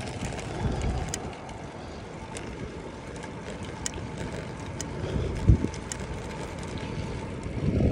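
Drop-bar bicycle's tyres rolling over cracked, patched concrete, a steady rumble with wind noise on the microphone. There are a few light clicks and one thump about five and a half seconds in.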